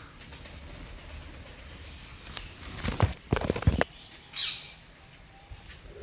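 Pigeon's wings flapping in a quick flurry of claps lasting about a second, around the middle, followed by a brief rustle.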